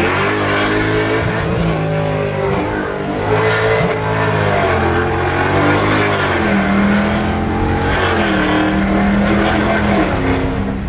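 2018 Dodge Charger Scat Pack's 6.4-litre Hemi V8 with long-tube headers, heard from inside the cabin, pulling hard under acceleration, its pitch climbing and dropping back at each upshift. About six seconds in it settles into a steady drone as the car cruises.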